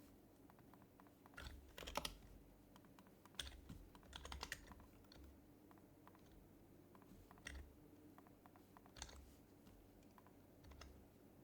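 Typing on an HHKB Professional HYBRID Type-S keyboard: its quietened Topre switches make soft, muted keystrokes. The keys come in short flurries with pauses between, the busiest ones about two seconds and four seconds in, with single presses later on.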